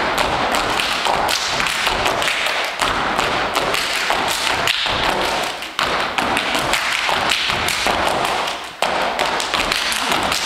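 Step team stomping and clapping in rhythm: a fast, dense run of sharp foot stomps and hand claps, with a couple of brief gaps.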